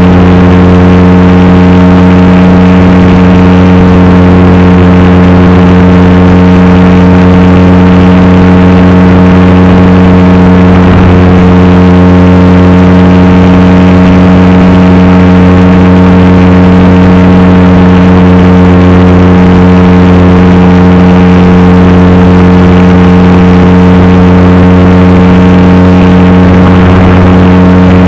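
Radio-controlled model Cessna's motor and propeller running at a steady cruise throttle, heard up close from the onboard camera: a loud, unchanging drone with a constant pitch.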